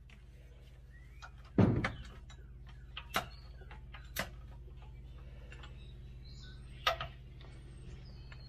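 Metal tools and bolts knocking against the truck's transmission and frame as the transmission is being bolted up: a handful of sharp, separate knocks, the loudest about one and a half seconds in, over a steady low hum.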